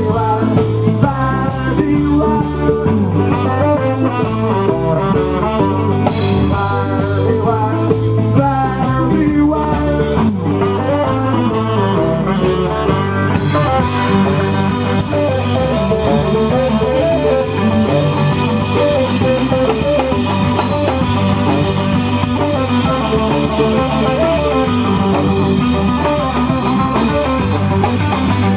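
Live rock band playing an instrumental passage: drum kit, electric guitar and low bass notes, loud and amplified. The lead line is busy in the first half and settles into steadier playing about halfway through.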